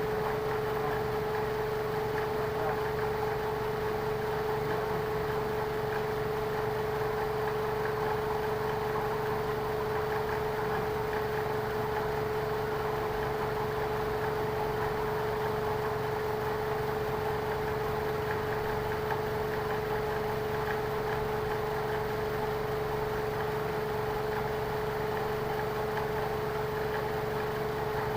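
Lexus car engine idling steadily, with a constant pitched whine over the running noise.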